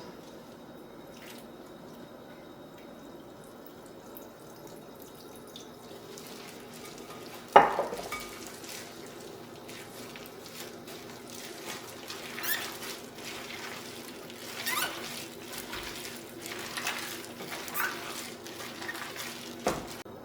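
Water being worked into a thick vegetable fritter batter: wet squishing and scraping of the batter being stirred in a bowl, irregular and growing busier after a single sharp knock about seven and a half seconds in.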